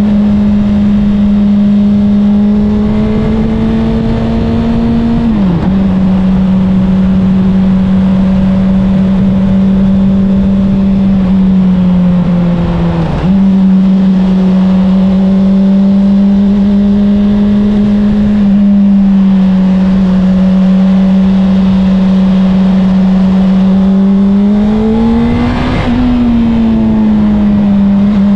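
Honda CBR600RR inline-four with an Akrapovic exhaust, heard from on the bike while riding at a steady, low-throttle pace. Its pitch drops sharply about five seconds in and again about thirteen seconds in, and rises before falling again near the end, as the rider changes throttle and gears, with wind rush on the microphone throughout.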